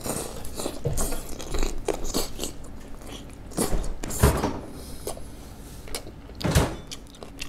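Close-up eating sounds: boiled samgyetang chicken being bitten off the bone and chewed, with a series of irregular mouth noises.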